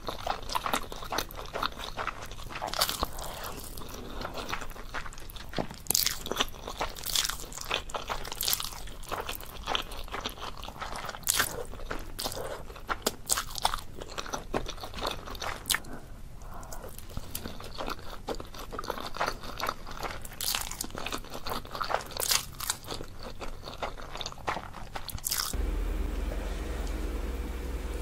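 Close-miked mukbang eating sounds: a person chewing and slurping saucy noodles, with a dense run of wet mouth clicks and smacks. Near the end a steady low hum comes in under the eating.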